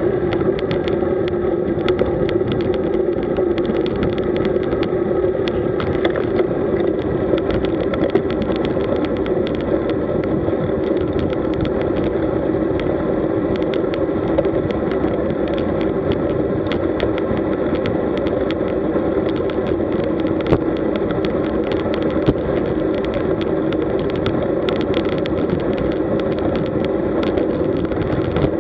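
Road bike riding fast at about 40 km/h on asphalt, picked up through a bike-mounted camera: a steady hum of tyre, road and wind noise, broken by frequent small clicks and rattles over bumps.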